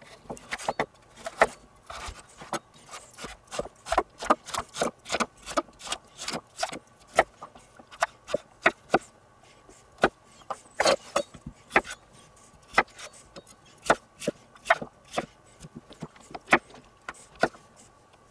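Kitchen knife chopping carrots, then potatoes, on a wooden cutting board: an irregular run of sharp knocks as the blade strikes the board, a few a second.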